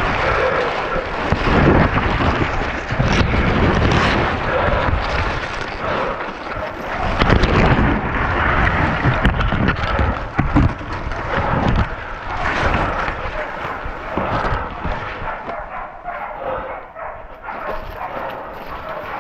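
Pig-hunting bay dogs barking, mixed with loud rustling and sudden knocks close to the microphone. The noise is dense and heavy through most of the stretch and eases somewhat near the end.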